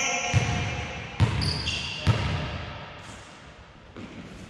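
Volleyball being struck and bouncing on a hard court: three sharp thuds in the first two seconds, each ringing out in a large hall, then the play goes quieter.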